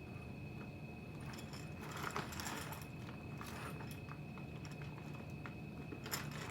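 Light rattling and rustling as an aftermarket truck grill with its mounting brackets is handled, in a few short spells over a faint steady hum.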